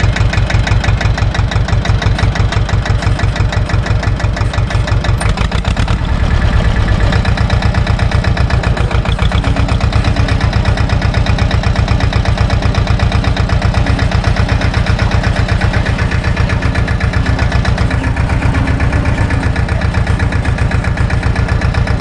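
SAME tractor's diesel engine running steadily under the driver as the tractor drives, with a fast, even exhaust beat; the engine note shifts slightly about six seconds in.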